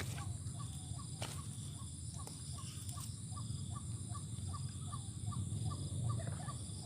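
Outdoor ambience with a steady low rumble and a run of short, faint chirps, about three a second, from a small animal.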